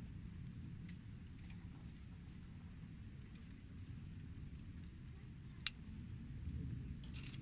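Wood campfire crackling: scattered sharp pops and ticks, with one loud pop about three-quarters of the way through, over a steady low rumble.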